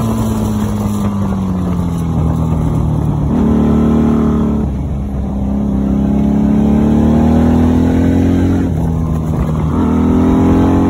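Honda Magna VF750C's V4 engine running under way. The revs fall for the first few seconds, then rise steadily through the middle, with a few sudden steps up and down in pitch.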